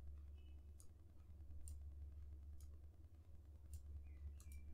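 Faint computer mouse clicks, about half a dozen at uneven intervals, over a low steady hum.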